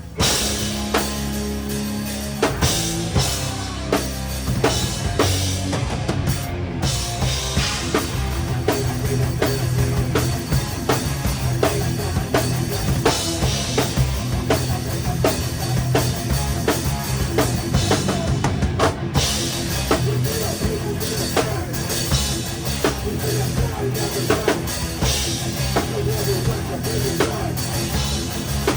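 Live rock band playing, heard close up from the drum kit: kick, snare and cymbals loud over the bass and guitars.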